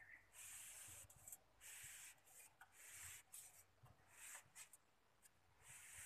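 Near silence with faint bursts of rubbing hiss that come and go about once a second, quieter for a stretch near the end.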